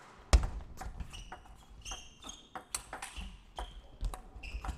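Table tennis rally: the celluloid-type plastic ball clicking crisply off rubber-faced bats and the table, roughly two to three hits a second, with short high squeaks of players' shoes on the court floor.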